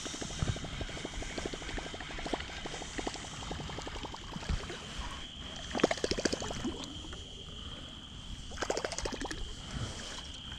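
Baitcasting reel being cranked with a fast, even ticking while a musky lure splashes and gurgles at the water surface as it is brought in beside the boat. The loudest splashing comes about six seconds in and again near nine seconds, over a faint steady high whine.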